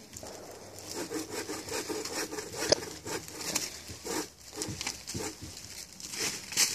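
Shoes and hands scraping and scuffing against the bark of fallen tree trunks, with dry leaves and twigs crackling underfoot; irregular clicks throughout and one sharp crack about three seconds in.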